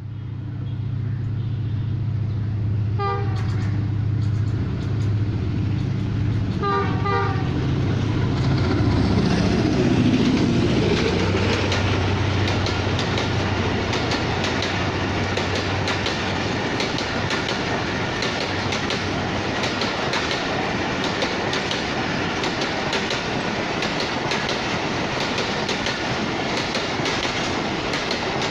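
Pakistan Railways express train with a diesel locomotive approaching at speed, its engine droning and its horn sounding two short blasts. The locomotive then passes close and the coaches rush by, wheels clicking quickly over the rail joints.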